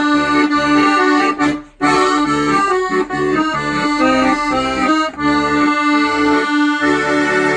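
Piano accordion playing a tune: a melody moving over a sustained lower note, with a short break about two seconds in.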